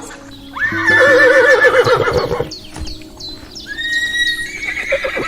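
A horse whinnying: one long, wavering neigh starting just under a second in, followed by fainter high chirps.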